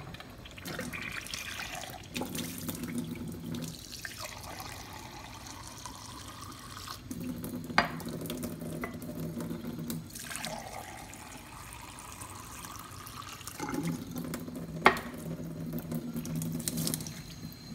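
Water running from a Kangen water ionizer's hose into a stainless steel sink and a glass. A low steady hum comes and goes in stretches, and there are two sharp clicks, about 8 s in and again about 15 s in.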